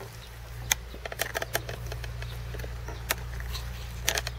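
A steady low hum with scattered light clicks and taps: a few clicks about a second in, one past the three-second mark, and a quick cluster near the end.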